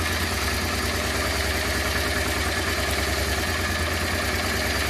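Honda Transalp's V-twin engine idling steadily while its carburettor air-fuel mixture screws are adjusted to cure a rough idle.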